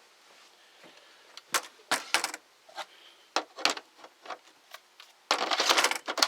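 Scattered clicks and knocks of tools and plastic parts being handled as a hedge trimmer is put back together, then about a second of loud rattling noise near the end.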